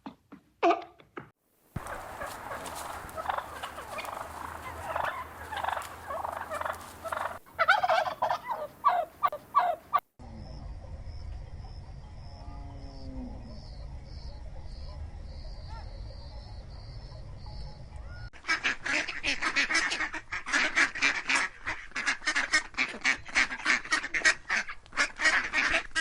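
A flock of geese honking in rapid, repeated calls. In the middle the honking drops away for several seconds to a low background rumble, then starts again.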